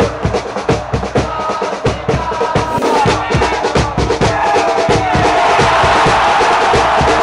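Football supporters chanting in the stands over steady, rapid drumbeats. About five seconds in, the crowd's voices swell into a loud, sustained shout.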